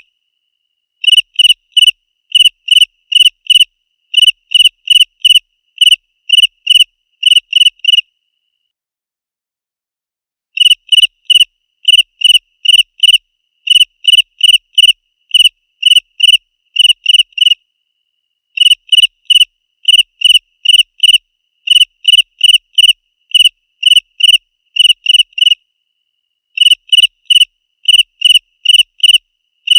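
A cricket chirping loud and clear: short, even, high-pitched chirps repeated about two to three times a second, with a silent pause of a few seconds about eight seconds in and shorter pauses later.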